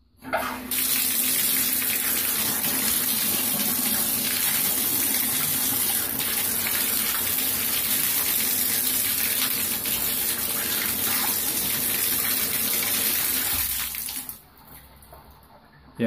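Water from a bathtub spout running steadily into the tub after the shower valve handle is turned on, shut off near the end. It is a test run of the water temperature after the valve's temperature limit was adjusted.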